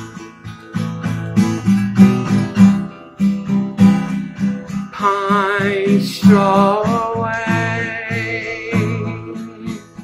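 Steel-string acoustic guitar strummed in a steady rhythm. About halfway through, a voice holds one long wavering note without words.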